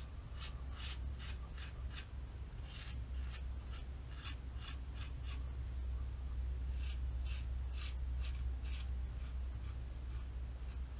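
3D-printed injector razor with a Proline B injector blade cutting stubble through lather: short, scratchy scraping strokes in quick runs, several a second. A steady low hum runs underneath.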